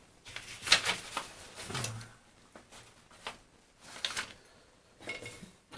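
Irregular light clicks, scrapes and rustles of small parts being handled and taken apart: the plastic housing and keypad of a Bang & Olufsen BeoCom 2 telephone.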